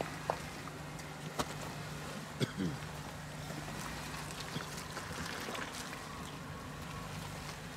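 Vehicle engine running steadily at low revs, with a few sharp clicks and knocks and one short falling creak about two and a half seconds in.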